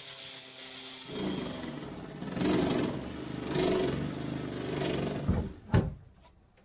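A power tool's steady whine for about a second. Then a jigsaw cutting through a fibreglass deck panel, its sound swelling and easing about once a second, followed by two loud knocks near the end as the cutting stops.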